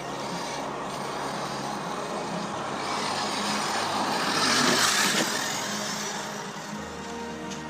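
Electric radio-controlled off-road car driving close by on dirt, a rush of motor and tyre noise that builds, peaks about five seconds in and cuts off sharply.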